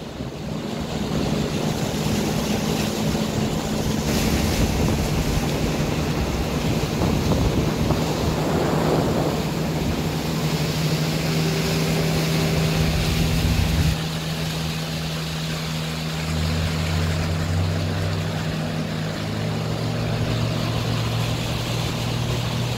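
Small boats' outboard motors running at speed, a steady hum over water rushing past the hull and wind on the microphone. The engine note shifts lower about two-thirds of the way through.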